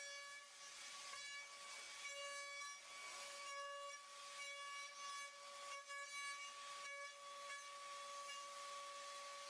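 CNC milling machine's end mill cutting a metal block, a steady high-pitched whine under a hiss of coolant and cutting noise.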